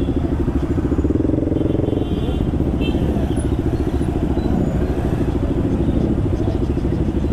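Motorcycle engine idling steadily close by, with an even, rapid low pulsing.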